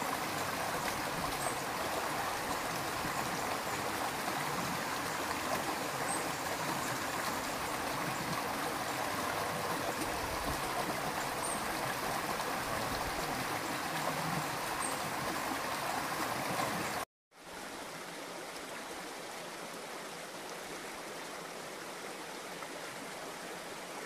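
Steady running and splashing water of a koi and goldfish pond. About two thirds of the way through it cuts off suddenly and a quieter, steady hiss follows.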